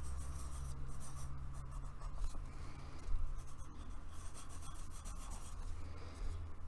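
Pencil scratching on paper in quick short strokes as small rounded shapes are outlined, over a steady low hum.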